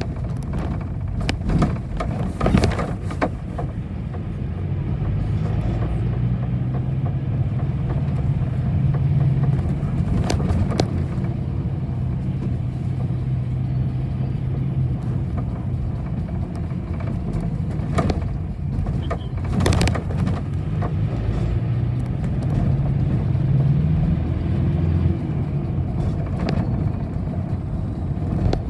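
Inside a moving city bus: steady engine and road rumble, the engine note rising and falling as it drives, with a few sharp rattles and knocks from the cabin.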